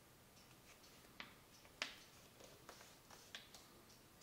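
Sheet of paper being folded and creased by hand on a wooden tabletop: faint rustles and a few sharp crackling ticks, the loudest about two seconds in.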